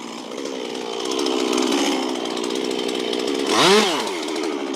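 Stihl chainsaw running steadily as it saws into a large tree trunk, with a brief rise and fall in pitch about three and a half seconds in.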